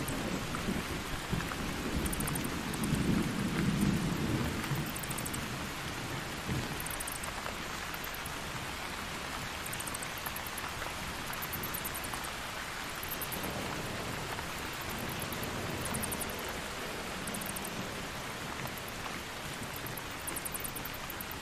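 Steady rain with a low rumble of thunder that swells a couple of seconds in and dies away by about six seconds. Brief, rapid high-pitched chittering of bats comes and goes every second or two over the rain.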